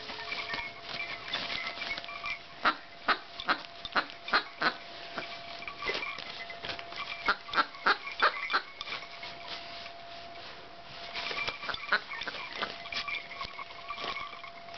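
A small dog rummaging in and tearing at a plastic gift bag and wrapping paper to open a present: rustling with runs of sharp crinkling crackles, densest about three to five seconds in and again around seven to nine seconds.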